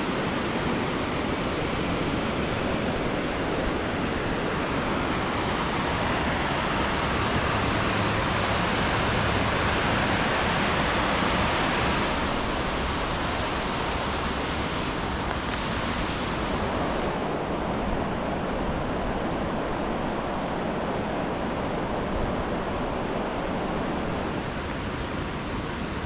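Cascading waterfall rushing steadily. It swells for several seconds around the middle, then eases a little.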